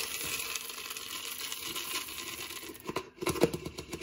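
Chocolate chips poured from a plastic tub into a steel mixing bowl of cookie dough: a steady rustling slide, then a quick cluster of clicks and taps near the end.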